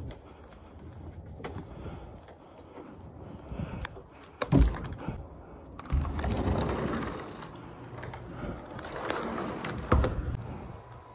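Handling noises of a person climbing into a wooden cupboard: scattered knocks and bumps against the wooden panels and door, with clothing rustling in between.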